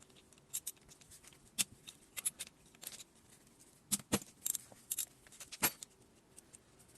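Irregular sharp metallic clicks and clinks of hand tools and parts being handled while a KamAZ single-cylinder air compressor is taken apart, with a few louder knocks.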